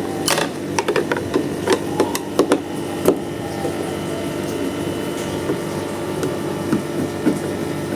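Scattered sharp clicks and taps of small bolts and hand tools being handled, most of them in the first three seconds, over a steady hum.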